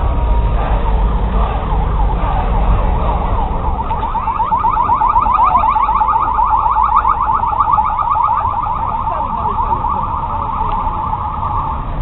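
Police vehicle siren sounding a fast, rapidly repeating yelp from about four seconds in, after fainter wavering tones, over low street traffic rumble.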